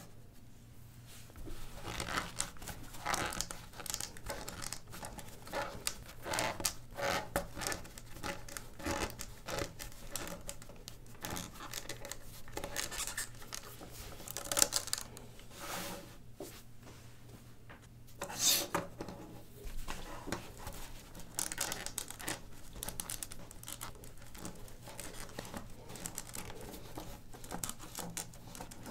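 White plastic LEGO plates clicking, scraping and rattling against each other as they are handled and bent in a long strip, with one sharp click about halfway through.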